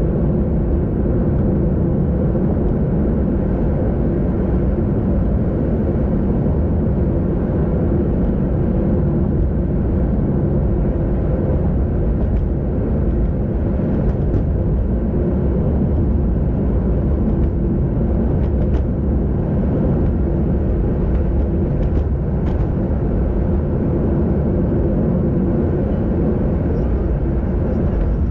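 Steady low rushing noise of a moving bicycle ride on a road: wind on the microphone and tyre rumble, with a few faint ticks.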